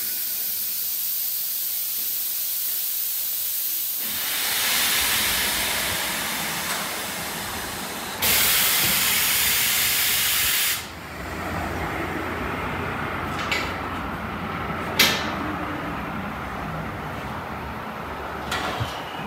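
Compressed air hissing at a tire changer while truck tires are mounted. A steady hiss builds, then a loud blast of air starts about eight seconds in and cuts off sharply after two and a half seconds. A few sharp clicks follow.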